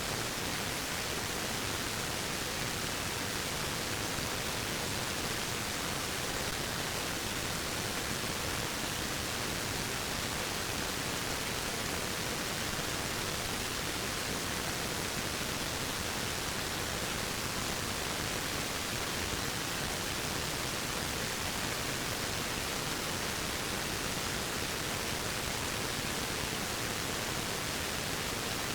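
Waterfall rushing in a steady, even hiss with no change.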